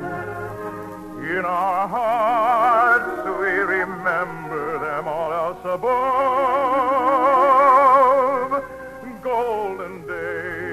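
A solo voice singing an operetta melody with orchestral accompaniment, in a broad operatic vibrato. A long, loud held note comes about six seconds in and ends after eight seconds.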